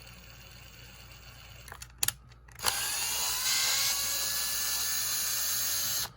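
A small electric drill starts a little over two seconds in, its motor winding up in pitch and then running steadily for about three and a half seconds before stopping abruptly.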